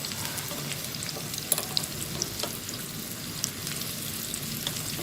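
Chả lá lốt, minced pork rolls wrapped in betel leaves, frying in oil in a pan: a steady sizzle with scattered crackles and pops.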